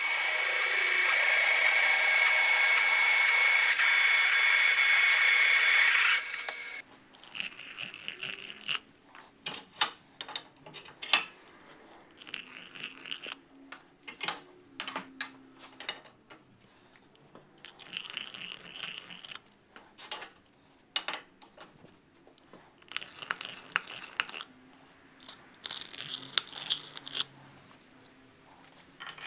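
Drill press running a 7/8-inch twist drill through a steel plate, a loud steady cutting noise with a high tone and the hiss of the cool mist coolant, which stops abruptly about six seconds in. After that come scattered metal clinks and knocks as the drilled steel plate and its pin are handled at a bench vise.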